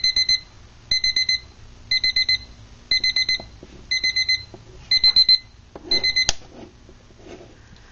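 Electronic beep alarm of a Living Solutions AC-powered analog quartz alarm clock, going off in bursts of about four quick high beeps roughly once a second. About six seconds in it stops with a sharp click.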